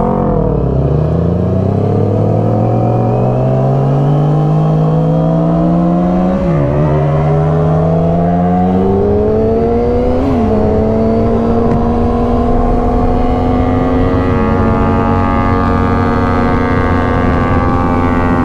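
Yamaha R6's inline-four engine pulling up through the gears, the pitch climbing and dropping sharply at upshifts about six and ten seconds in. It then holds a steady pitch at cruising speed.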